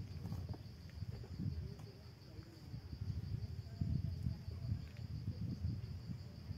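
Insects chirring in one steady high-pitched drone, over a low, uneven rumble that is the loudest thing throughout.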